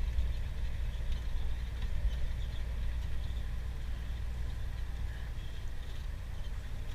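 Scania truck heard from inside the cab: a steady low engine rumble with faint light rattles over it.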